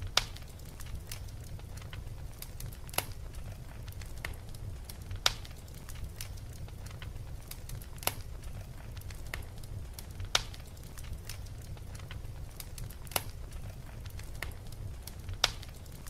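Fireplace fire crackling: a steady low rumble with many small crackles and a sharp pop every two to three seconds.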